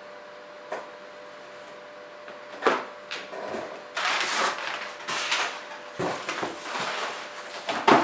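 Hands rummaging in a cardboard shipping box: after a couple of seconds of steady faint hum, a knock, then several seconds of irregular rustling and scraping of cardboard and plastic packaging, with another sharp knock near the end.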